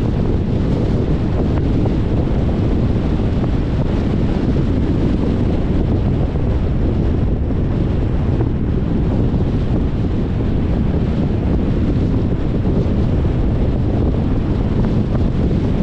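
Wind rushing over the microphone of a car-mounted camera as the car drives at speed, a steady low rumble mixed with road noise.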